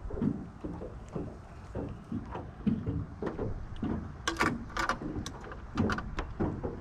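Irregular hollow knocks and clunks from inside an aluminium jon boat, with a cluster of sharper clicks about four seconds in, over a low rumble of wind on the microphone.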